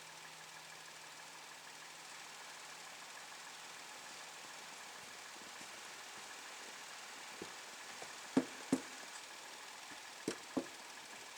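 A faint steady mechanical hum with a few sharp knocks partway through: a single knock, then two close pairs.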